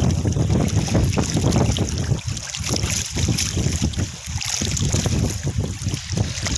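Wind buffeting the microphone in uneven gusts over open sea, a loud low rumble that comes and goes with brief drops.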